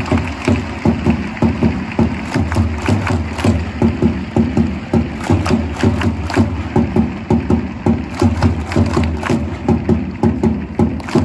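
Loud rhythmic stadium music with a fast, heavy, repeated beat.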